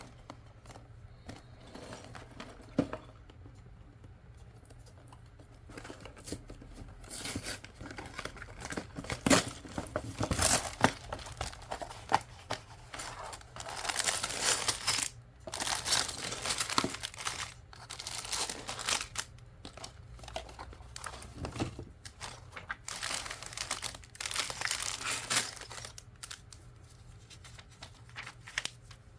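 Lego set packaging crinkling and tearing as it is opened, in irregular bursts with a few sharp clicks, starting about six seconds in.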